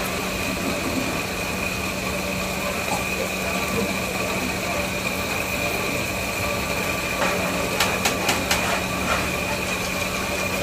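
Steady machine noise with a constant low hum and a high whine, and a few sharp clicks about eight seconds in.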